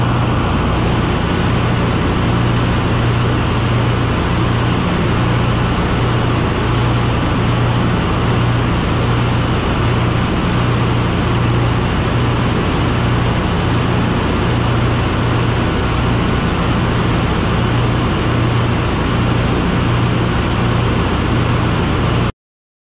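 Tanker ship's engine-room machinery running: a loud, steady drone of diesel-driven machinery and pumps with a low hum that swells and fades in an even rhythm. It cuts off suddenly near the end.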